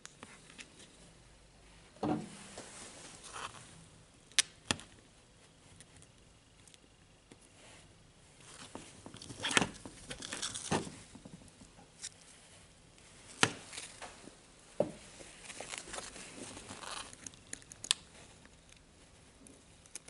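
Steel tweezers and small steel roller pins clicking and tapping against a metal drill gear ring and the tiled bench, with soft rustling from gloved hands. A few sharp clicks stand out, scattered several seconds apart.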